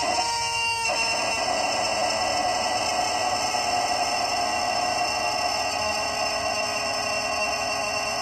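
Rubber chicken toy squawking: a short squawk, then about a second in a long, steady, shrill screech that goes on without a break.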